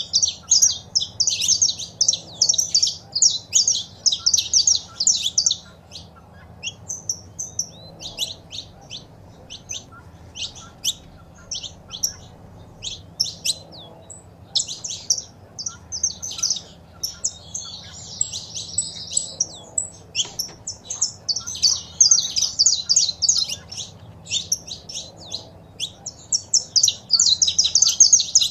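Saffron finches calling and singing: fast runs of high, sharp chirps, densest at the start and again in the last third, with scattered single chirps between. The title says these are a female's calls and a male's song.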